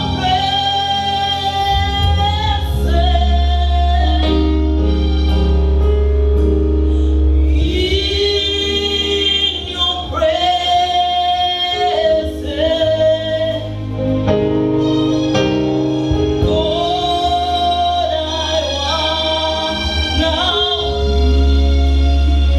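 Gospel worship song in a church service: voices singing together over long held bass notes.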